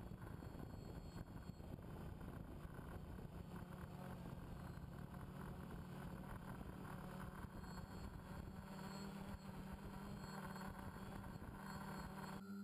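Small multirotor drone's motors and propellers humming steadily with a low buzzing tone, heard through the drone's own camera; the sound changes abruptly just before the end.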